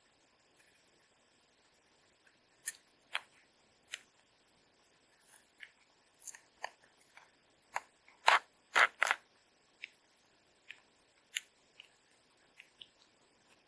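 Plastic film lid being peeled off a plastic ready-meal tray: a string of sharp crackles and snaps, loudest in a quick cluster about eight seconds in.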